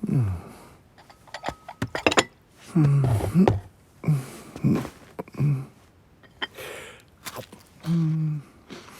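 Short vocal sounds, grunts and mews, some falling in pitch, between scattered clicks and knocks, typical of a cartoon cat's voiced sound effects. A longer, level vocal sound comes about eight seconds in.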